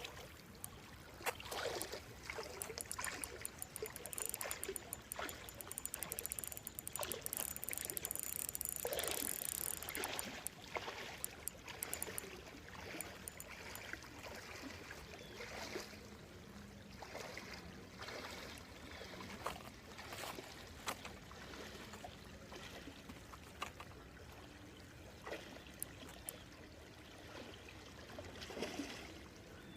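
Creek water flowing, with irregular splashing and sloshing as someone wades through it, busiest in the first ten seconds or so.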